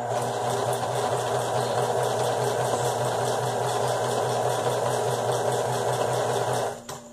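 Electric sewing machine stitching felt, running at a steady speed with a constant motor hum, then stopping about a second before the end.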